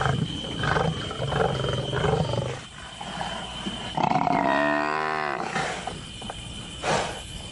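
Lions growling and snarling as they hold down a Cape buffalo bull, with one long bellow falling in pitch about four seconds in and a short snarl near the end.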